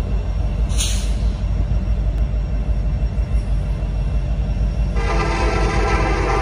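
Norfolk Southern diesel locomotive's air horn sounding for the grade crossing as the train approaches: after a pause, a long chord-like blast starts about five seconds in, over a steady low rumble.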